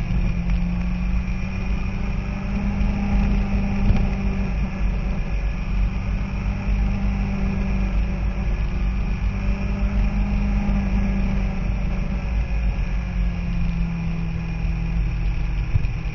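Motorcycle engine running at road speed, its pitch slowly rising and falling, under heavy wind rumble on a bike-mounted microphone.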